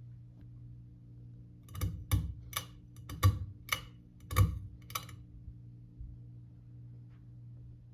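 Hunter Low Profile IV ceiling fan motor giving a steady low hum, with an irregular run of about eight sharp clicks between about two and five seconds in.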